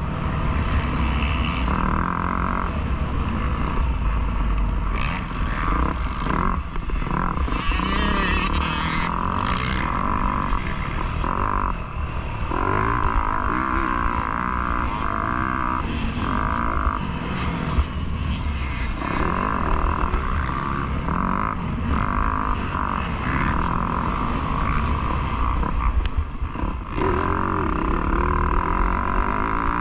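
Yamaha YZ250F's four-stroke single-cylinder engine being ridden hard on a motocross track, its note rising and dropping every second or two as the throttle is opened and shut.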